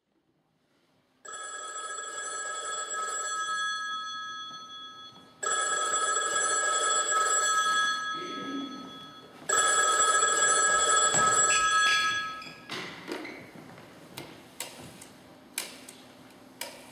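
A telephone ringing three times in long rings of about four seconds each. Scattered light knocks follow near the end.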